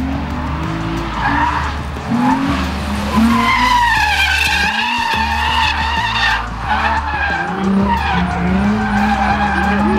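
Nissan 350Z drifting: the tires squeal in long, wavering screeches, loudest from about three to six seconds in, over the engine revving up and down.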